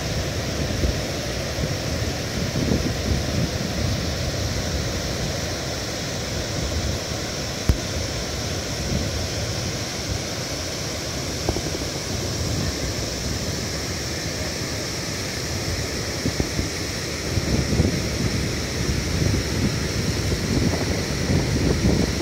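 Steady rush of the Pykara River's white water tumbling over rock shelves and rapids. Low gusts of wind buffet the microphone in the last few seconds.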